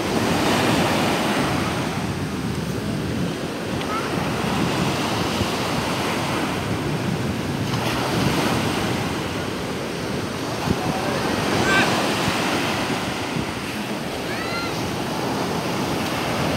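Sea surf: small waves breaking and washing up over a sandy beach in a continuous rush that swells and eases every few seconds.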